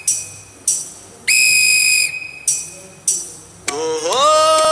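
A shrill whistle blown in a pattern of short and long blasts, about five in all with a long one in the middle. About three and a half seconds in, a sung 'Ohh ohhh' begins, the opening of a jingle.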